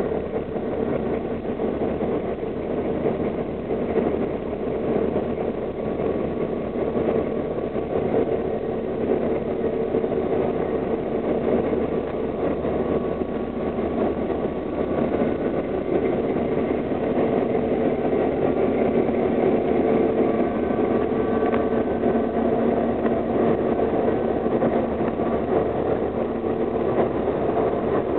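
Diesel-electric locomotives idling in a rail yard: a steady engine drone that holds level throughout.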